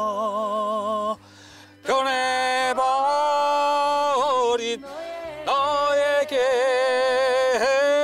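A man singing a slow Korean ballad, holding long notes with a wavering vibrato, in three phrases with short breaths between them.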